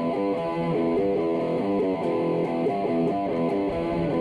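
Background music: guitar playing a steady run of chords.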